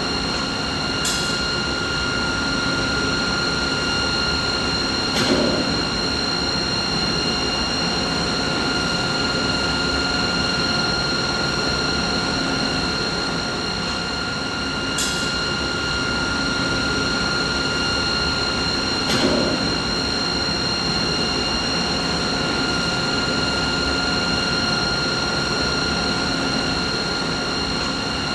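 Steady machinery hum: an even rush of noise with several fixed whining tones held over it. A short tick and a brief low thump come back about every fourteen seconds, like a loop.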